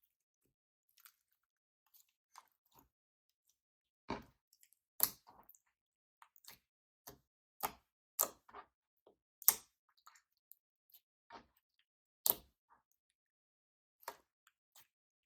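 Slime being kneaded and stretched by hand, making irregular short sticky pops and clicks, the loudest ones near the middle and about three-quarters through.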